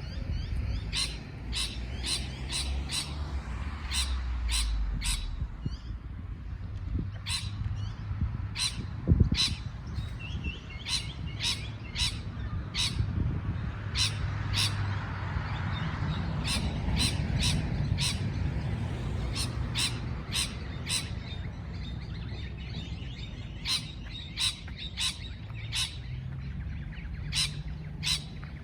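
Parrot giving short, sharp, high chirps over and over, often in quick runs of three or four, over a low background rumble. A single knock about nine seconds in.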